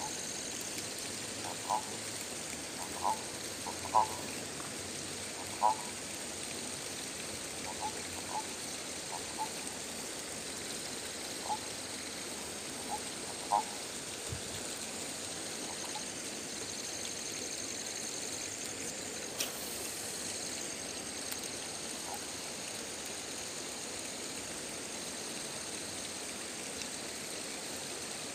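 Frogs calling in short single notes, irregularly spaced and mostly in the first half, over a steady high-pitched insect drone and a constant background hiss.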